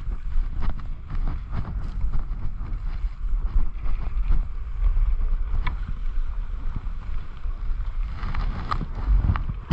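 Wind noise on a skier's action-camera microphone, a steady low rumble, over the hiss and scrape of skis sliding on packed snow, with scattered clicks. Near the end the scrapes and clicks come sharper and closer together as the skis slow down.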